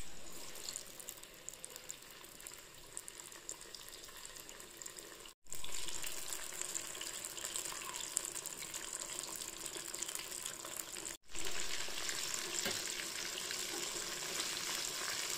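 Fish pieces coated in corn flour deep-frying in hot oil in a kadai: a steady sizzle with fine crackling. The sound cuts out briefly twice, about five and eleven seconds in, and comes back louder each time before settling.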